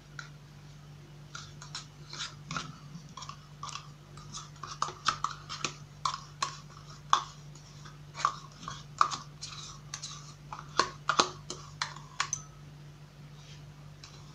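A spoon clinking and scraping as thick yogurt is spooned into a ceramic bowl: irregular light clicks and taps, coming thickest in the middle and stopping about two seconds before the end.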